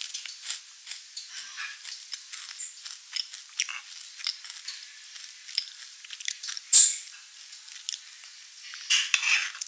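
Close-miked chewing of crunchy food: a run of small clicks and crackles from the mouth, with one sharp, louder click about seven seconds in. Near the end, a metal spoon scrapes inside a waffle cone.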